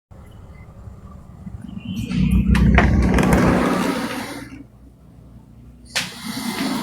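A man snoring loudly in his sleep: one long, rough, low snore that swells about a second and a half in and dies away around four and a half seconds, followed by a brief noise near the end.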